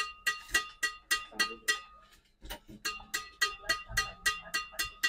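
String bed of a Hundred Supersonic badminton racket, freshly strung at 29 lbs, struck over and over at about three to four strikes a second, with a short break about two seconds in. Each strike gives a crisp, ringing ping: the racket's 'shooting sound', checked to judge the string tension.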